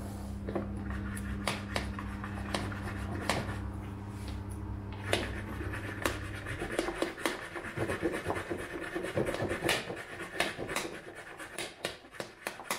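Milk being frothed in a French press: the plunger is pumped up and down, making rhythmic squishing strokes with light clicks, faster and denser in the second half. A steady low hum underneath stops about halfway through.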